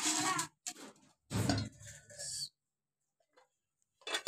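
Lidded aluminium cooking pot being handled and set down: a few short metal knocks and clatters, a duller knock as it comes down about a second and a half in, and a brief click near the end.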